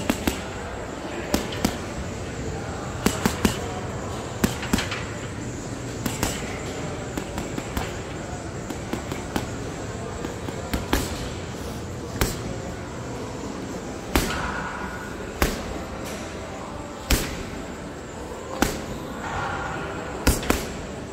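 Boxing gloves (Venum) punching solid, dense gym heavy bags: sharp smacks landing every second or two, singly and in quick doubles, over a steady background hum.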